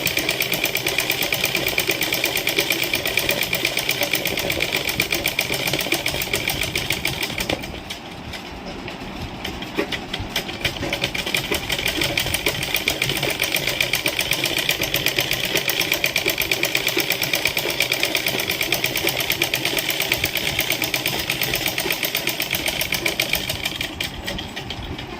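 Domestic sewing machine running fast for free-motion embroidery, its needle stitching in a rapid, even run of strokes. It eases off for a moment about seven seconds in, picks up again, and slows near the end.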